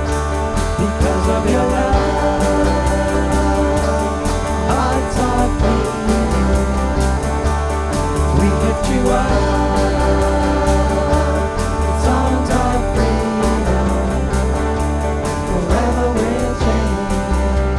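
Worship band playing a song with guitar, a steady bass and an even beat, and a voice singing the melody now and then.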